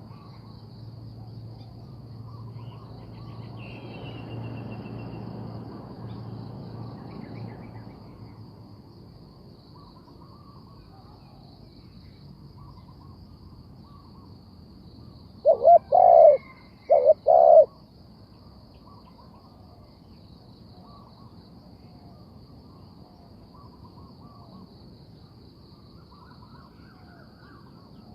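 A spotted dove coos once, about halfway through: one phrase of four low notes in two pairs. Under it runs a steady high insect buzz, with faint chirps from other birds.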